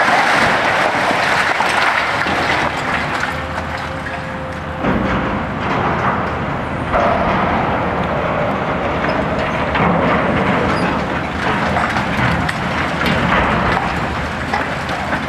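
Hitachi ZX870-3 high-reach demolition excavator at work: its diesel engine and hydraulics run under load while the demolition jaws on the boom crush concrete, with continuous crackling of breaking concrete and falling rubble. A brief steady whine rises out of it twice, about three seconds in and again around seven seconds.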